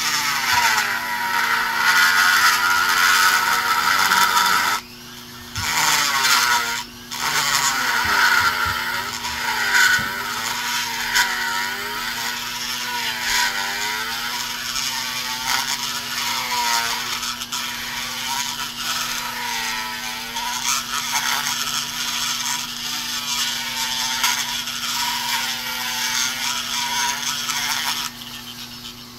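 Die grinder cutting poured aluminum filler in the EGR port of an Oldsmobile 350 cast iron cylinder head: a high whine whose pitch wavers up and down as it works. It cuts out briefly twice a few seconds in, then stops shortly before the end.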